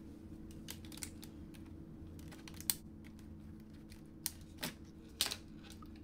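Light, scattered plastic clicks and taps as a laptop's battery latches are slid and the battery is lifted out of its bay, over a faint steady low hum.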